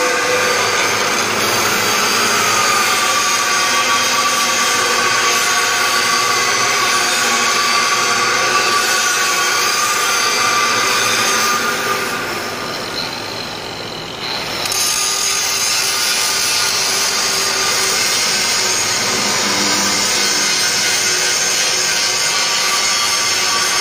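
Angle grinder cutting into metal: a steady high whine over the hiss of the disc on steel. About twelve seconds in the disc comes off the work and the sound drops for a few seconds, then it bites into the metal again.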